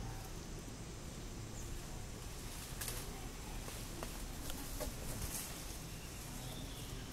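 Outdoor background: a steady low rumble with a few short clicks and rustles between about three and five and a half seconds in, and faint bird chirps.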